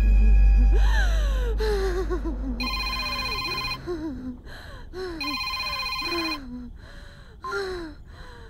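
A telephone rings twice, each ring about a second long, over a person's short gasping breaths, each falling in pitch. A deep drone from the film score fades out in the first few seconds.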